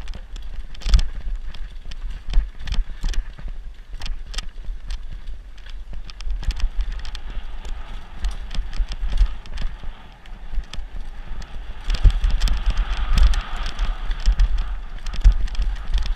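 Mountain bike descending rough forest singletrack at speed, heard from a camera on the rider: wind buffeting the microphone as a deep rumble, with the bike rattling and clattering over roots and rocks in frequent sharp knocks. A louder rushing hiss comes in about twelve seconds in.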